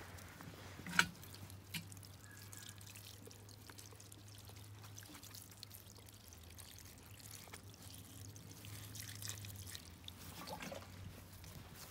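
Water pouring and trickling from a watering can onto potted plants, with a sharp knock about a second in.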